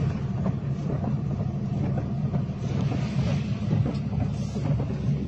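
Strong storm wind buffeting the microphone: a steady low rumble with a fainter hiss of wind above it.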